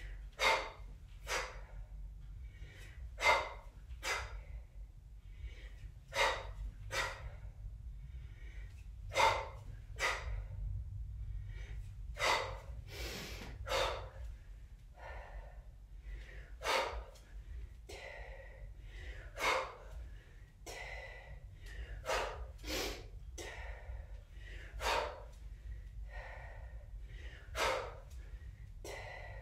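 A woman's short, sharp, forceful exhales in time with her kettlebell snatches and swings, repeating every one to two seconds, over a steady low hum.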